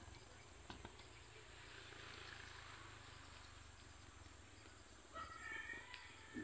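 Near silence: faint outdoor ambience with a light insect hiss, and a brief faint call or voice near the end.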